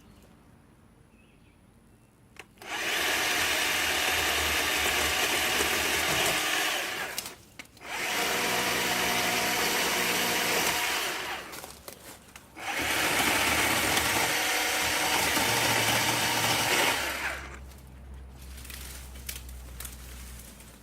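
WORX 40-volt battery-powered electric chainsaw running in three bursts of about four seconds each, dropping away briefly between them as the trigger is released.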